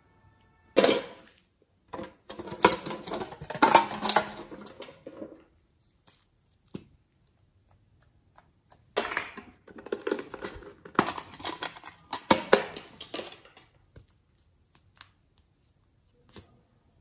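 Crinkling, crackling handling noise of slime-making materials under the hands, in three bursts: a short one about a second in, then two longer runs of several seconds each, with quiet gaps between.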